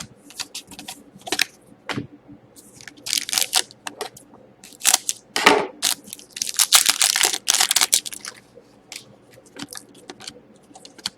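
Hockey trading cards and their foil pack wrapper being handled: irregular crinkling, tearing rustles and card clicks, thickest a little past the middle.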